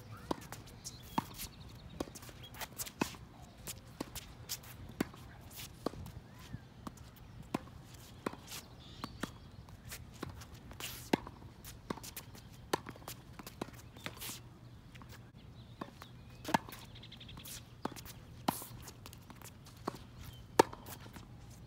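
A tennis rally: sharp pops of the ball off racket strings and its bounces on a wet hard court, in a steady back-and-forth about once a second, with footsteps on the wet court between the hits.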